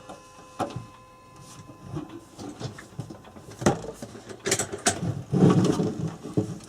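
Small clicks, taps and knocks of parts and wiring being handled and fitted on an electric clock, with a louder clatter about five and a half seconds in.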